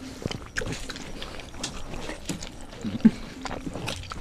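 Two people eating with their hands: wet chewing and lip smacks, with the squelch of fingers mixing soft khichuri, in short irregular clicks and squishes.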